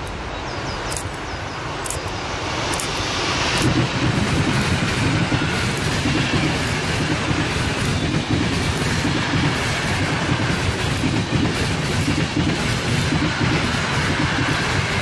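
Electric-hauled passenger express (an EU44 Husarz locomotive with a long rake of coaches) passing close at speed. A few sharp clicks come as it approaches, then from about four seconds in a loud, steady rumble and clickety-clack of the coaches' wheels rolling by.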